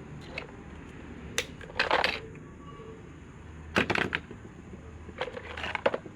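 Sharp clinks and clatters of small metal parts and tools being handled during an electric fan motor repair, in three short bursts over a low steady hum.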